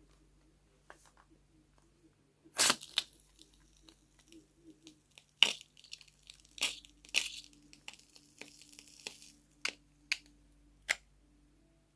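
A series of sharp tearing and crinkling handling noises, loudest about two and a half seconds in, with several more short cracks after that.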